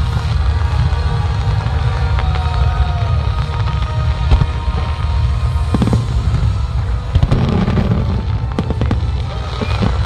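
Fireworks going off in sharp bangs and crackles that cluster in the second half, over loud music with a heavy, steady bass.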